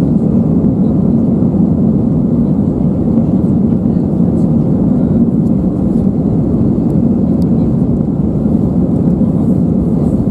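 Steady low rumble inside the cabin of an Airbus A320-200 as it taxis, heard from a window seat over the wing, with the engines running at low thrust. The level holds even throughout, with no spool-up.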